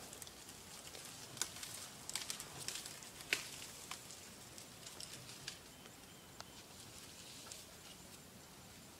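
Dry twigs and brush crackling and snapping in scattered, irregular bursts, most of them in the first half, as an elephant browses through dry thornbush.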